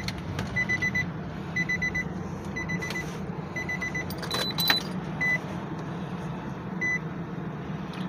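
Car's electronic warning chime beeping in quick clusters of short, high beeps about once a second, then thinning to a couple of single beeps, over a steady low hum. It is the chime of a key left in the ignition with the driver's door open.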